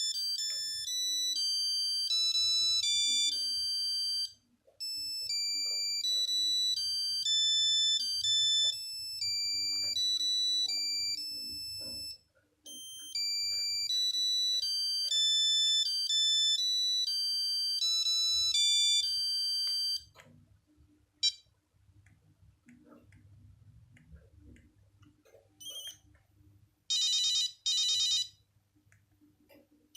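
Nokia 8210 monophonic ringtone playing from the phone's speaker: a beeping melody of single high notes, its phrase repeating with short gaps and stopping about twenty seconds in. Two short beeps follow near the end.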